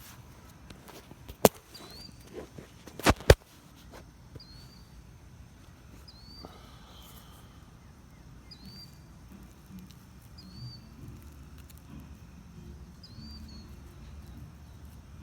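Three sharp cracks, one about a second and a half in and two close together about three seconds in. Over a quiet outdoor background, a small songbird gives the same short hooked chirp about every second and a half.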